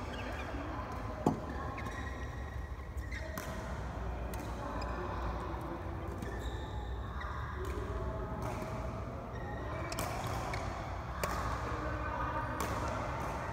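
Badminton rally: rackets striking the shuttlecock with sharp pops every second or two, the loudest about a second in.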